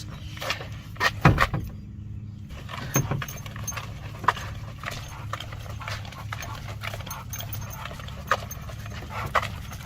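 Bulldog's sounds as it walks along on a leash, with irregular footsteps and knocks; the loudest knock comes about a second in.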